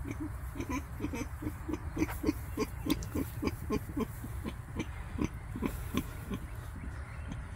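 A sow lying on her side grunting softly in a quick, steady rhythm, about three or four short grunts a second, while her belly is rubbed and pressed.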